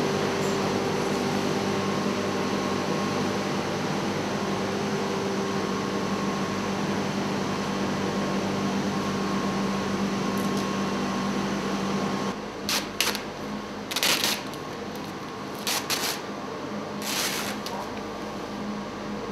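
A steady machine hum with a low drone cuts off about two-thirds of the way through. Then come five or six short swishing scrapes of plexiglass sheets being slid and handled on a worktable.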